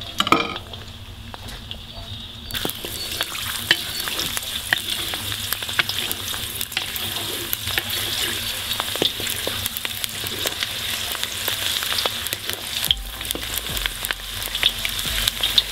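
Crushed garlic cloves sizzling in hot sunflower oil in a cast-iron kazan, the hiss filling in about two seconds in. A wooden spatula stirs them, with many small clicks and taps against the pan.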